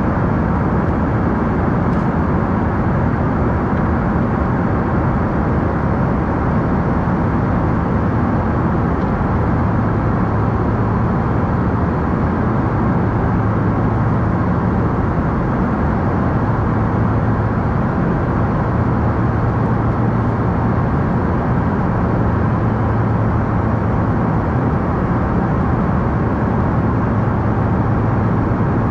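Embraer E145 regional jet in flight: the steady noise of its two rear-mounted Rolls-Royce AE 3007 turbofans and the rushing airflow, heard from inside the aircraft, with a low hum underneath.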